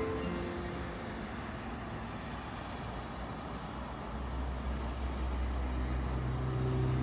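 Steady rumbling noise, with a deeper low hum joining about four seconds in and a faint high pulsing about once a second.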